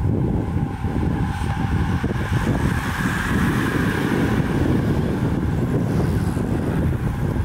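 Wind buffeting the microphone in a loud, fluttering rumble. Over it, the hiss and whir of a group of racing bicycles swells as the riders pass close, peaking about three seconds in.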